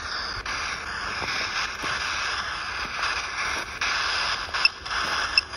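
Ghost-hunting app on a phone's speaker playing a steady hiss of radio-like static, with a few short high beeps near the end.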